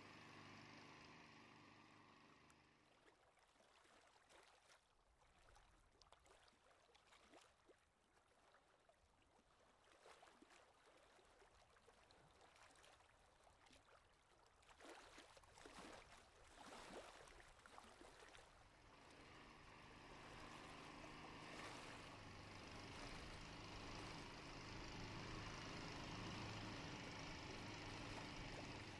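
Near silence: faint outdoor background hiss with a low steady hum. It dies down after a couple of seconds and swells back from about twenty seconds in.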